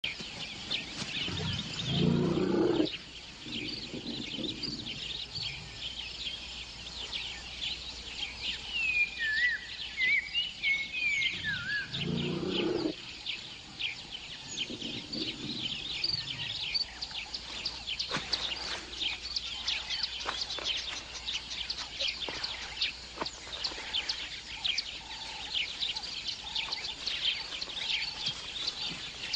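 Outdoor wildlife ambience: dense, rapid high chirping of birds, with a few gliding whistled bird calls about a third of the way in. Two loud, deep sounds about a second long break in, one near the start and one about twelve seconds in.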